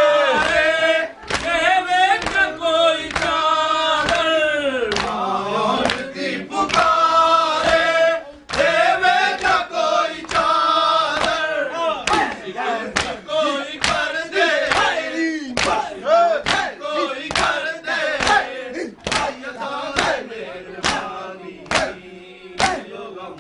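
A group of men chanting a Punjabi-Urdu noha (lament) in chorus, with sharp slaps at about two a second: mourners beating their chests (matam) in time with the lament. The singing thins in the last third, leaving mostly the slaps.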